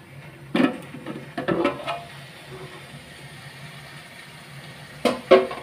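A metal spoon scraping and clattering against an aluminium pot as a thick fish mixture is stirred, in short bursts about half a second and a second and a half in, and again near the end.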